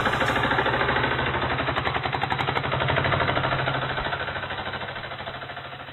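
Auto rickshaw engine running with a rapid, even chug as the three-wheeler drives up, fading away near the end.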